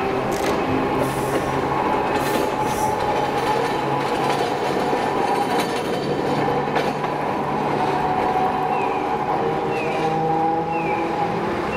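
Toyohashi Railway streetcar running through the street: a steady rumble of wheels on rail with a steady hum of several held tones and a few clicks in the first seconds. Near the end a short high chirp starts, repeating about once a second.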